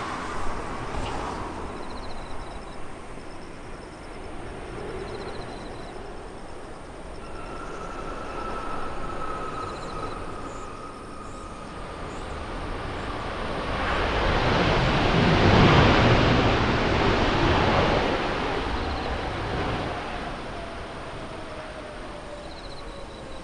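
Airbus A350-900 with Rolls-Royce Trent XWB engines passing by. Its engine whine falls in pitch as the jet noise swells to a peak about two-thirds of the way through, then fades with a lower, still-falling whine.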